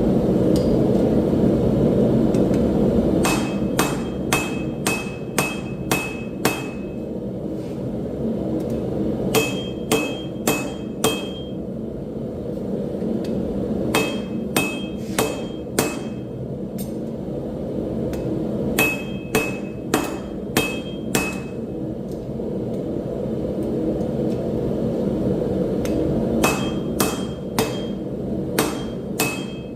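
Forging hammer blows on steel over an anvil, each strike ringing, in runs of about five to eight quick blows with pauses of a few seconds between. A steady low rushing noise runs underneath.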